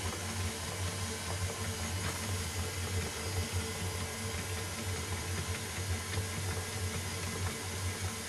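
KitchenAid stand mixer running steadily, its flat beater turning a crumbly flour-and-oil dough mix in the stainless steel bowl, with an even motor hum.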